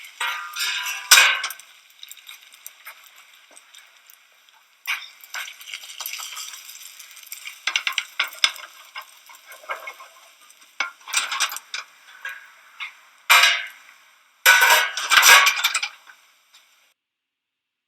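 Spanish omelette sizzling in oil while the frying pan clatters and scrapes as the omelette is flipped, with a cluster of sharp clatters late on. The sound stops shortly before the end.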